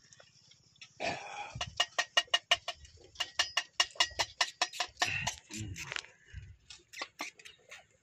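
A rapid run of sharp clicks, about five a second, that thins out near the end, after a short rustle about a second in.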